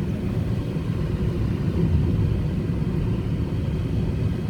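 Steady low rumble of road and engine noise from inside a moving car.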